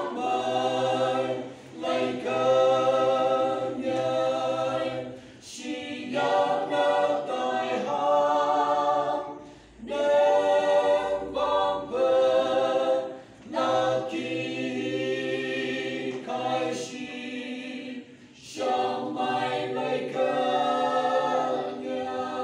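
A woman and two men singing a hymn in the Phom language unaccompanied, in harmony, in phrases of a few seconds with short breaks for breath between them.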